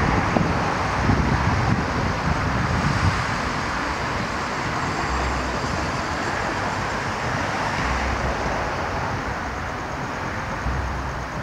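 Steady noise of distant road traffic, with low rumbles of wind on the microphone now and then.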